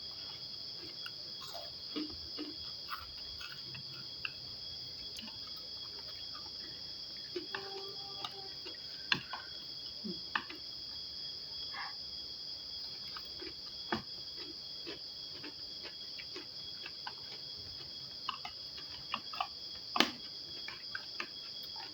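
Crickets trilling steadily in a continuous high chorus, with scattered small clicks and taps from eating: utensils on a plate and chewing.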